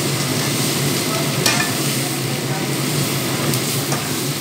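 Food sizzling in hot oil in a pan as it is stirred, with a utensil knocking against the pan about one and a half seconds in and again, more faintly, near three and a half seconds. A steady low hum runs underneath.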